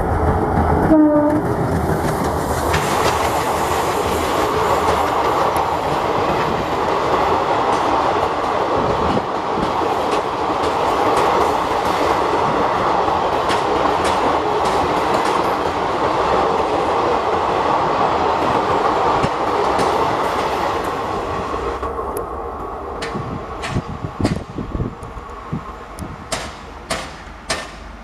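Express passenger train hauled by twin ALCo WDM diesel locomotives passing at speed. A brief horn note comes about a second in, then the steady rush and rattle of the coaches goes by. Near the end it fades into separate wheel clicks over the rail joints as the last coaches pass.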